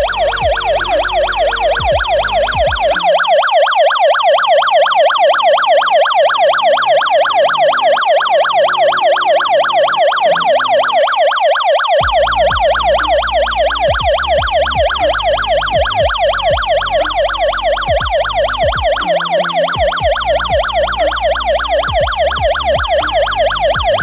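Siren of an AGSHOME wireless GSM alarm system sounding loudly, a rapid electronic warble sweeping up and down, switched on remotely by the SMS command '1234ONSIREN'. It cuts off suddenly at the end, when the '1234OFFSIREN' text is delivered.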